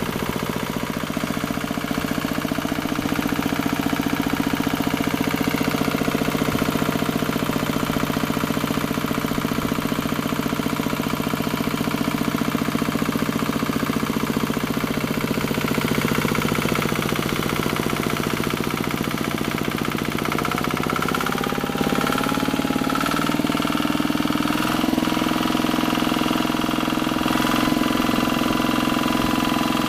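CP90 single-cylinder, water-cooled four-stroke diesel engine (487 cc, tiller/pump engine) running steadily at idle. About twenty seconds in its speed rises a little and it gets slightly louder.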